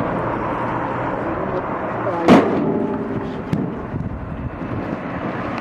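A single heavy thud about two seconds in, over a steady background noise, with a smaller knock a second later.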